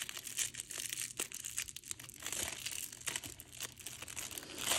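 Clear plastic treat bag crinkling as fingers work its tied knot loose and slide it off: a run of irregular small crackles.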